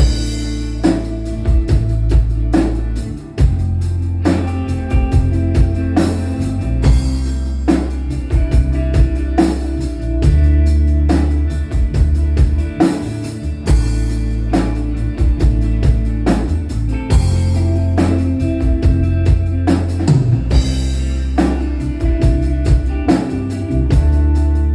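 Live band playing an instrumental passage with a steady drum-kit beat, guitar and sustained low notes.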